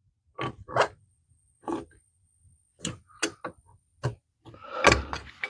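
Irregular clicks and knocks of a wrench and pipe fitting being worked while a tee is snugged onto a waterline, about eight in all, the loudest near the end.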